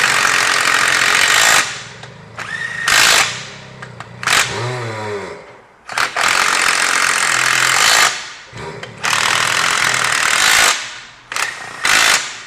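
Pneumatic tire-shop tool running in repeated loud bursts, from under a second to a few seconds long, while radial tires are fitted to beadlock wheels. A short falling whir comes about five seconds in.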